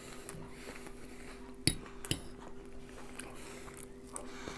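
Metal fork clinking twice against a plate of vermicelli, about a second and a half to two seconds in, over a faint steady hum.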